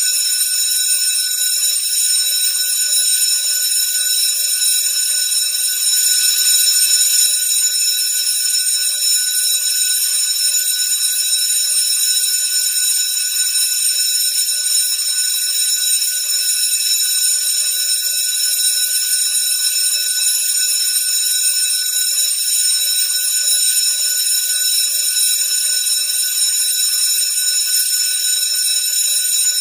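School bell ringing continuously: a loud, high-pitched, unbroken ring that holds steady without pause.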